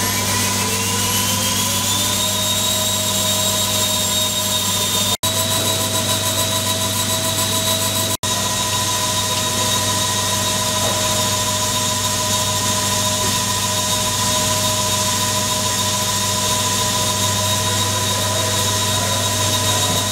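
Hauser S50L-CNC jig grinder's grinding spindle whining as it runs up in pitch over the first couple of seconds, then holding a steady high whine while it grinds a steel part under coolant spray. The sound cuts out for an instant twice.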